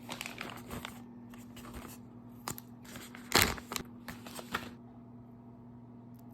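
Keystrokes on a mechanical keyboard with lubed Prevail Epsilon linear switches, in quick runs of clacks with one louder clack about three and a half seconds in. The keys stop about five seconds in, leaving only a few faint clicks.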